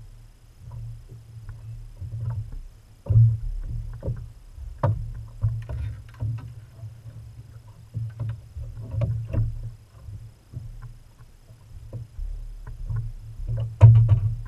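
Irregular low thumps and knocks carried through a bass boat's deck and hull as an angler shifts his weight while fighting and landing a fish, with the loudest knocks about three seconds in and just before the end.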